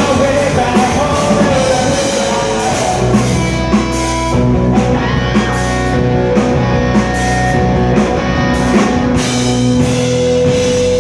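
Live rock band playing loud: electric guitar, electric bass and a drum kit.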